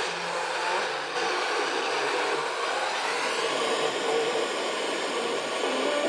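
FM static hiss from a portable full-band radio receiver's speaker, tuned with squelch off to a very weak FM signal around 93.9 MHz, while searching for distant stations by sporadic-E propagation. The noise is steady, with no clear programme audio above it.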